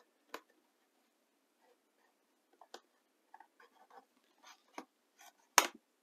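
Plastic bottom cover of a Dell Latitude 5420 laptop being pried loose along its edge: a scatter of small clicks and scrapes as its snap clips give, the loudest click near the end.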